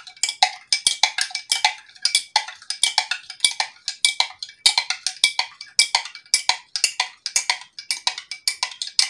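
A metal spoon clinking rapidly against the inside of a drinking glass, several strikes a second, while stirring salt into water to dissolve it.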